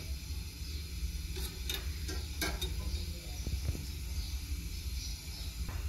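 Faint sizzling and light ticks of a heated knife cutting and sealing the thread edges of an embroidered lace patch, over a low steady hum.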